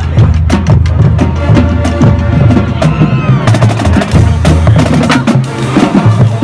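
Marching band playing: a drumline of Pearl snare and bass drums beating a fast, dense rhythm under sustained low brass notes from a sousaphone and trumpets.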